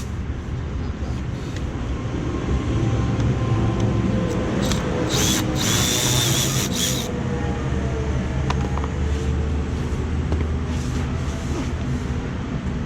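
A cordless power tool runs in one burst of about two seconds, about five seconds in, backing out the undertray screws. A steady low hum runs underneath, with a few light clicks.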